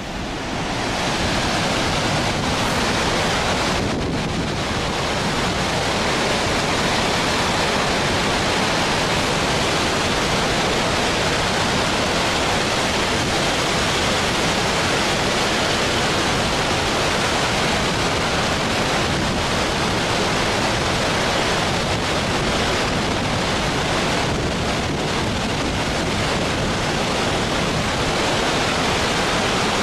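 Floodwater pouring over a weir and churning below it: a loud, steady rush of water that swells up within the first second and then holds even.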